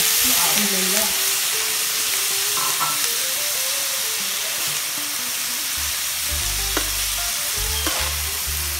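Shredded boiled chicken sizzling in oil in a frying pan while a metal spoon stirs it, scraping and tapping the pan now and then.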